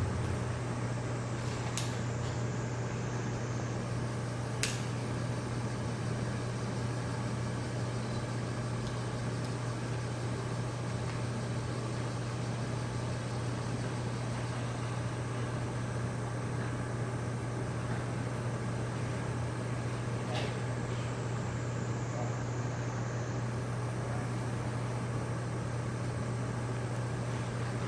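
Steady low mechanical hum, with a few faint sharp ticks.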